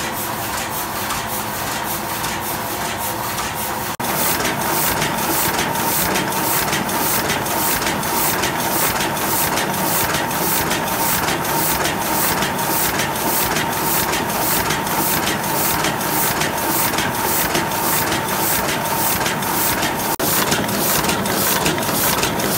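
Heidelberg GTO 46 offset printing press running and feeding sheets: a steady mechanical clatter with a rapid, even beat and a faint steady whine. It gets louder about four seconds in.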